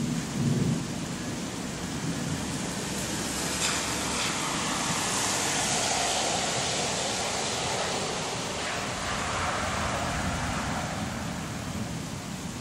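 Steady rain hiss from a passing thunderstorm, swelling and easing again over a few seconds in the middle, with a short low rumble about half a second in.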